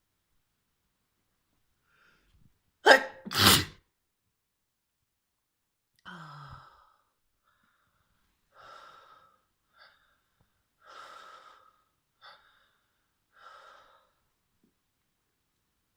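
A person's loud double sneeze, two bursts in quick succession, brought on by tickling the nose with a feather. Several much quieter breathy gasps and sniffs follow.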